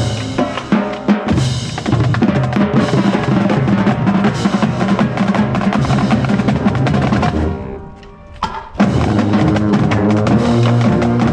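High school marching band playing, with drums (bass and snare) under held band notes. The music drops away briefly about eight seconds in, then comes back in full.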